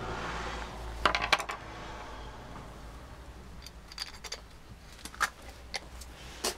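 Metal parts of a Bosch starter motor clicking and clinking as the pinion engaging fork is fitted and aligned by hand. A quick cluster of sharp clicks comes about a second in, then a few lighter clicks further on.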